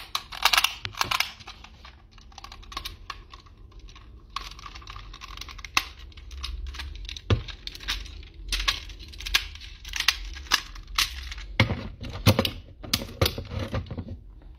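Power Rangers bison Zord toy being folded and fitted together by hand: parts clicking, snapping and rattling irregularly, with a sharper snap about seven seconds in.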